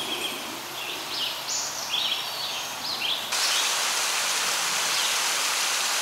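A songbird singing a quick run of short high chirps. Just past halfway, a steady rushing of stream water comes in suddenly, with one more chirp near the end.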